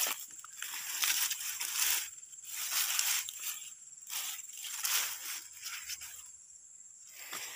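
Dry grass and weeds rustling and crunching in repeated swells about a second apart, as the stalks are brushed aside and trodden.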